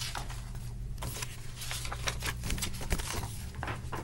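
Paper pages of a paperback picture book rustling and crinkling as it is opened and handled, with a sharp tap about three seconds in, over a steady low hum.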